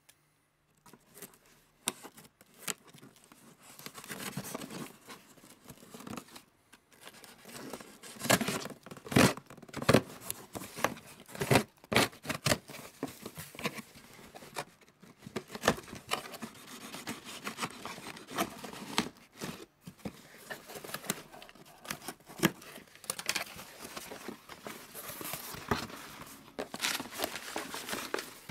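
Packing tape being torn off a cardboard shipping box, then the cardboard flaps and packing being handled: irregular tearing, rustling and sharp knocks.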